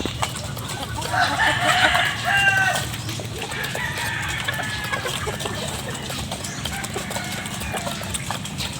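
Chickens clucking, with a louder, longer call lasting about two seconds, starting about a second in.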